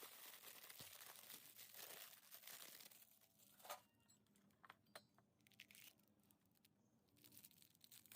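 Faint crinkling and rustling of a plastic parts packet being handled, with a few small clicks; one sharper click a little under four seconds in.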